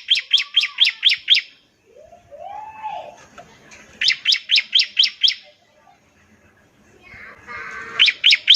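Bar-winged prinia (ciblek) singing: three bursts of rapid, sharp repeated notes, about seven a second, the rattling 'nembak ngebren' song, with softer twittering between the bursts.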